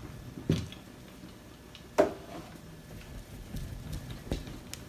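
Hand rolling black cold-porcelain (biscuit) clay into a thin snake on a tabletop: faint rubbing with a few light knocks, the sharpest about two seconds in.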